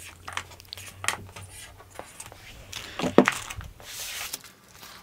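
Stiff cardboard player panels tapping and clattering as they are picked up and stacked on a wooden table, with a scatter of light clicks. Near the end a plastic bag holding cardboard punchboards rustles.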